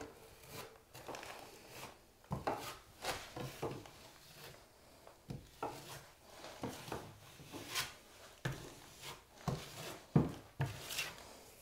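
Drywall knife scraping setting-type joint compound over FibaFuse tape on a wall: a run of short, irregular swipes.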